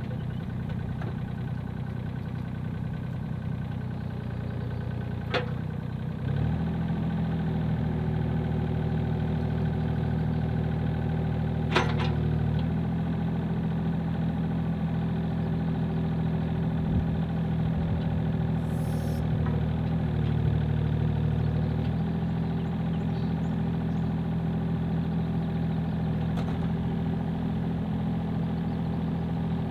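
Komatsu mini excavator's diesel engine running steadily while the hydraulic boom raises the reversed bucket and lowers it again. The engine note rises about six seconds in, holds under load, and drops back about two-thirds of the way through, with two short sharp clanks along the way.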